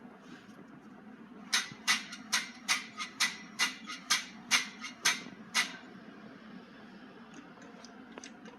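About eleven sharp knocks in an even rhythm, a little over two a second, starting about one and a half seconds in and stopping near the middle, over a steady low hum.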